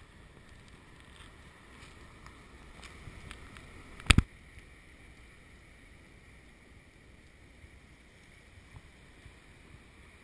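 Water lapping and light splashing around a kayak on calm sea, with one sharp double knock about four seconds in.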